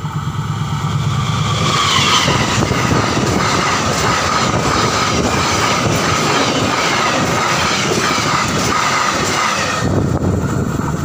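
Diesel-hauled passenger train passing close at speed: the locomotive swells up and goes by in the first two seconds, then a loud, steady rush of the carriages' wheels on the rails, with a steady whine running through it, which falls away about ten seconds in as the last carriage passes.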